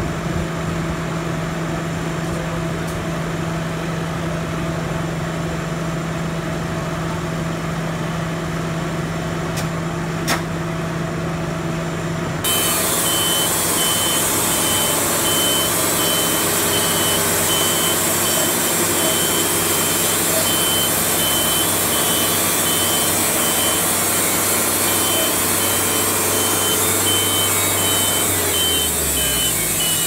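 Wood-Mizer LT70 sawmill running while the saw head is set up on the log: a steady machine hum, which about twelve seconds in jumps louder and noisier with a rapid high beeping. A low hum drops in pitch near the end.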